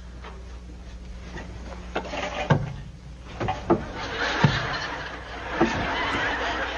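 Several sharp knocks and thumps against a bunk-bed ladder as a heavy man struggles to climb it while being pushed from below. Studio audience laughter swells from about halfway.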